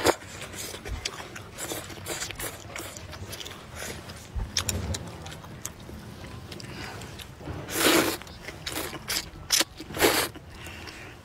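A person eating noodles close to the microphone: many small wet clicks of chewing, and two loud slurps of noodles being sucked in, the second about two seconds after the first, near the end.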